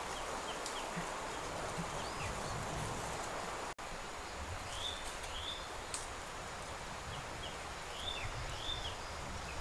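Countryside ambience: a steady background hiss with small birds chirping briefly now and then, in a few short groups. The sound cuts out for an instant just before four seconds in.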